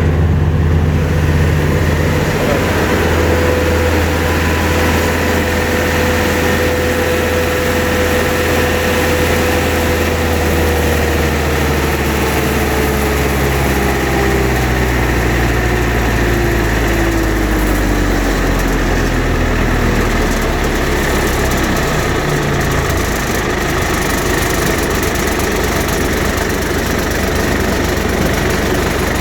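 Bandit 90XP wood chipper's Cat four-cylinder turbo diesel engine running steadily, with a whine that holds and then slowly falls in pitch through the middle of the stretch.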